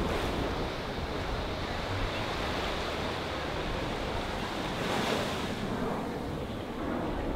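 Small waves washing onto the beach, with wind on the microphone: a steady hiss that swells slightly about five seconds in.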